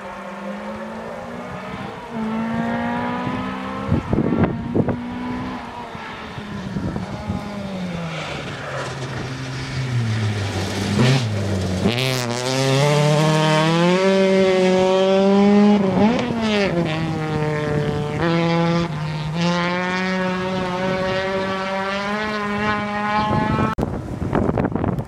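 Engine of a Volvo 900-series saloon rally car revving hard on a gravel stage, its pitch climbing and dropping through gear changes. About halfway the revs fall steeply as it brakes and slides through a hairpin, then rise again as it accelerates away. A few sharp cracks come near the start and in the middle.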